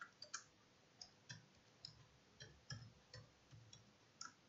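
Faint computer keyboard typing: about a dozen separate keystrokes at an uneven pace.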